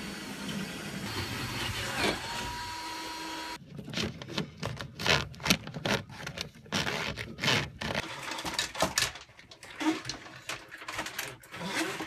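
Irregular clicks, knocks and rustles of hands working wires and corrugated cable loom inside a wooden cabinet. Before that, a steady hum with a held tone cuts off abruptly about three and a half seconds in.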